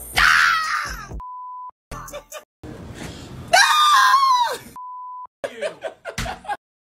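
Two startled screams of fright, the second a loud yell, each cut off by a steady censor bleep over a swear word.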